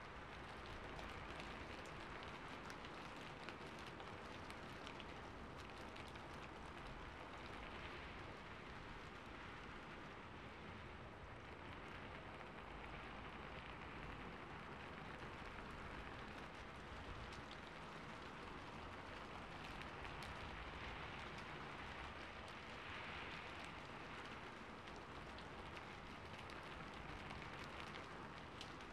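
Steady rain falling on a rooftop, an even soft hiss with individual drops pattering through it.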